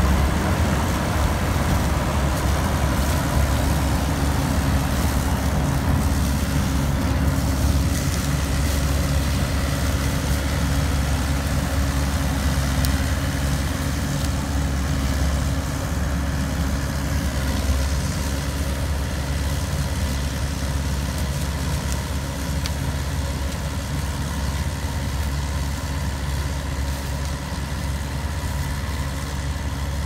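John Deere W70 combine harvester running while harvesting standing corn: a steady, loud low engine drone with the noise of the machinery over it. It grows slowly fainter as the combine moves away.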